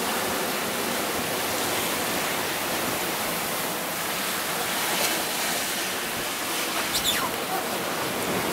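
Steady rushing hiss of strong wind and sea water around a sailboat's cockpit, sailing in 20 to 30 knots of wind, with a short falling squeak about seven seconds in.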